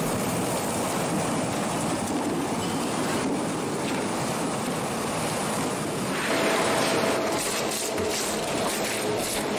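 Steady, even noise of fruit-processing machinery running as pineapples move over rollers and conveyors. About six seconds in, the sound changes and a faint steady hum comes in.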